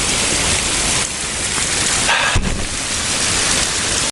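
Waterfall: a steady, loud rush of falling water, with a brief thump about two and a half seconds in.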